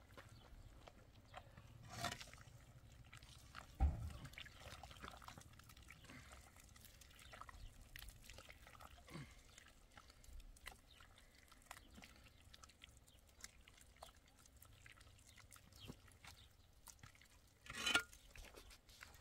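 Hollow concrete blocks being handled and set into mud mortar: scattered faint knocks and scrapes, a heavy thump about four seconds in, and a louder scrape of block on block near the end.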